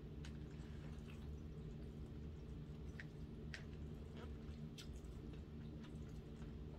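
Soft eating sounds: a fork scraping and clicking faintly against a bowl of smothered pork chops over rice, with quiet chewing, over a steady low room hum. The clicks come singly, a few each second or so, scattered through.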